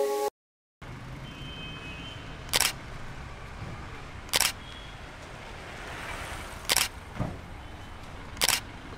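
Camera shutter clicking four times, about two seconds apart, over a steady outdoor hiss.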